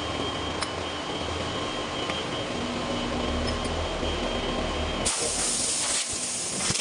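Heavy machine-shop machinery running with a steady low rumble and a thin high whine. About five seconds in, a loud hiss starts suddenly and runs for a couple of seconds.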